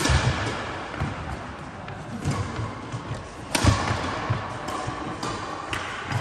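Badminton racket strikes on a shuttlecock during a doubles rally, with players' footsteps thudding on a wooden sports-hall floor. There are sharp cracks right at the start and about three and a half seconds in, each ringing on in the hall's echo.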